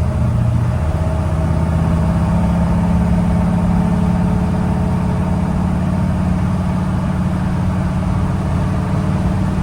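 1965 Chevrolet C10 pickup's small-block Chevy V8 running under way as the truck is driven. The engine note shifts in the first second or two, then holds a steady pitch.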